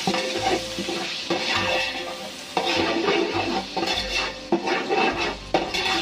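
A spoon stirring and scraping yogurt into hot oil and spice paste in a steel pot, in repeated strokes, with the mixture sizzling.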